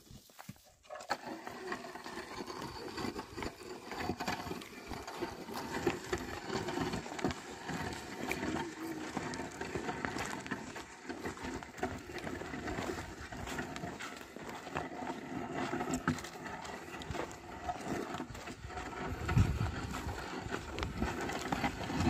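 A pair of oxen pulling a wooden plough through dry, stony soil: hooves and the plough scraping and knocking over the ground in many small scuffs and clicks, with a dull thump near the end.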